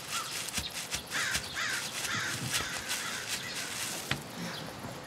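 A bird calling in short rising-and-falling notes, about two or three a second, fading out after about three seconds, over a steady outdoor hiss with a few light clicks and knocks.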